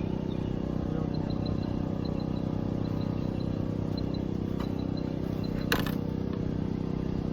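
Steady low outdoor rumble, with faint high chirps repeating a few times a second and a single sharp click about five and a half seconds in.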